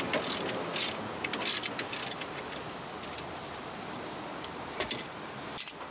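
Ratchet wrench clicking in short runs as rear brake caliper bracket bolts are backed out, with a couple more clicks near the end, over a steady background hiss.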